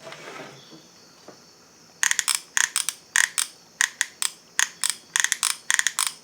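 Solder-wire feed mechanism of a NEWACALOX soldering gun clicking as the trigger is pulled over and over, pushing the solder wire through. Quick groups of sharp clicks, about three or four a second, start about two seconds in.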